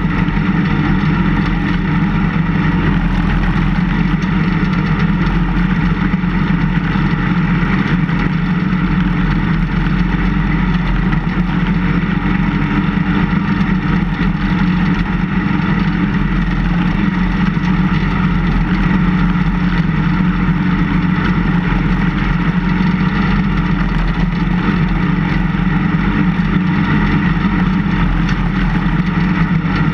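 Engine of a vehicle plowing snow, running steadily as it pushes snow with its blade.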